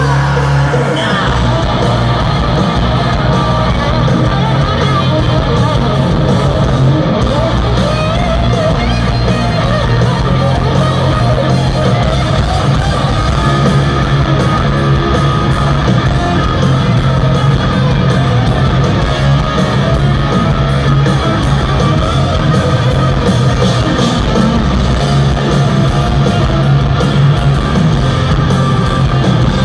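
Hard rock band playing live through a stadium PA, heard from within the crowd: electric guitar prominent over drums and bass.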